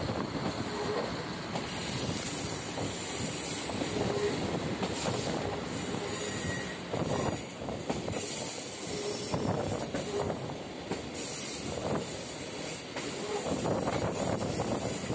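Railway carriage running along the line, heard through an open window: a steady rolling rumble with shrill wheel squeal coming and going several times as it takes the curves.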